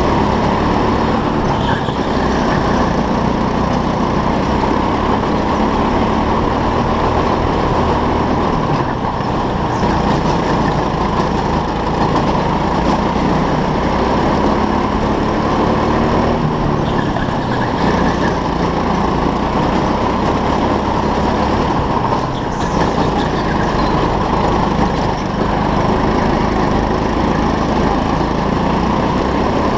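Go-kart engine running continuously under the onboard camera as the kart laps, its pitch rising and falling a little with throttle through the corners.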